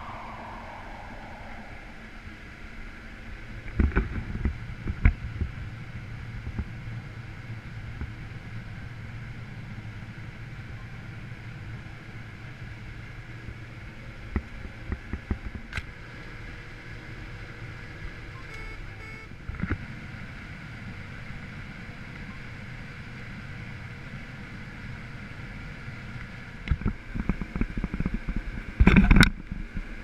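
Steady machinery drone of a combine harvester heard inside its cab while harvesting corn, with scattered sharp knocks and clunks, the loudest cluster near the end.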